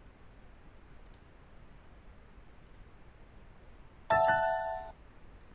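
Two faint mouse clicks, then about four seconds in a short computer alert chime of several tones that fades within a second, signalling that the SOFiSTiK export calculation has run.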